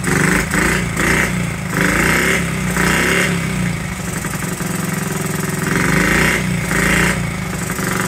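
A Honda Z50's small single-cylinder four-stroke engine running just after its first start in about 35 years, revved in repeated blips of the throttle between spells at a lower speed. It is running rich, by the mechanic's ear.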